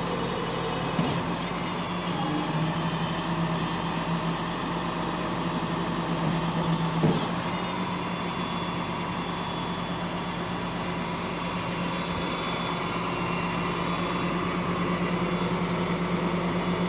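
Flatbed tow truck's engine running steadily, a low unchanging hum, with a brief knock about seven seconds in.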